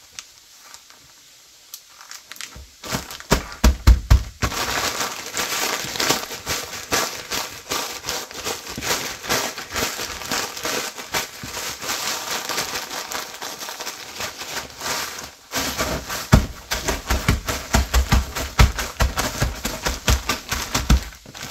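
Crackers being crushed by hand inside a zipper-lock plastic bag: dense crunching and crackling with plastic crinkle, starting a couple of seconds in, pausing briefly about two-thirds through, then going on. Dull low thumps come in among the crunches as the bag is pressed and worked.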